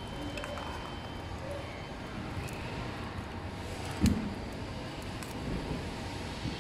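Light clicks and rustles of hands handling an electric scooter's wiring and frame, with one sharp knock about four seconds in, over a steady low rumble.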